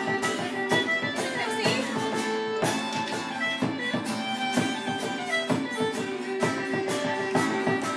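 Live traditional dance tune played on fiddle and acoustic guitar, with a steady beat of about two strokes a second.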